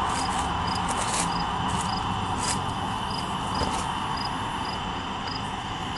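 A cricket chirping steadily, about three short chirps a second, over the steady rumble and hiss of a long double-stack intermodal freight train's cars rolling slowly past.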